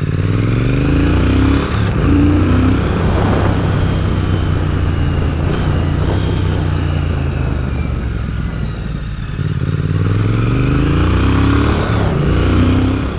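Triumph Speed Twin 1200's parallel-twin engine, breathing through megaphone exhausts, pulling hard under acceleration. The note rises in pitch several times as the revs climb, eases off briefly past the middle, then climbs again.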